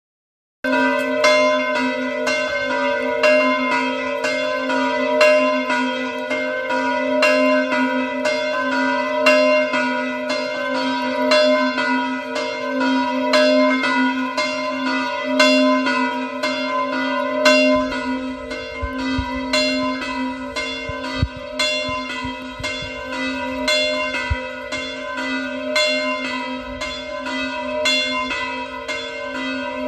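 Full swinging peal of two church bells, the larger two of a three-bell tower, tuned to B and C: swung full circle, their clappers strike in a loose alternating pattern of about two strokes a second, each stroke ringing on into the next. The peal starts suddenly about half a second in and is a call to Sunday Mass.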